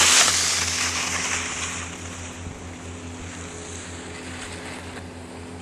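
Loud rushing hiss of skis sliding on packed snow mixed with wind on the microphone, fading over the first two seconds as the slide slows, leaving a steady low hum.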